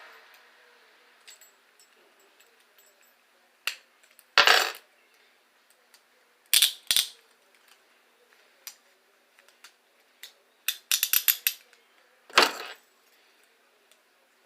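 Metal handcuffs being handled and worked: scattered clicks and clinks with a few short rattling bursts, and a quick run of clicks about eleven seconds in.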